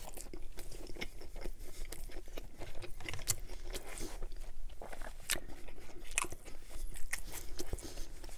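A man chewing a big mouthful of Chicago-style hot dog close to the microphone: a steady run of short, wet mouth clicks, with a few sharper ones here and there.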